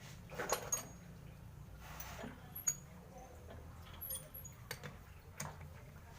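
Scattered light metallic clinks and taps with short ringing pings, as of steel tools and parts being handled and set down, over a faint steady low hum.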